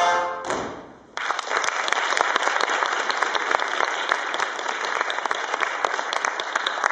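The polka music ends and fades out, then about a second in an audience breaks into steady applause that continues.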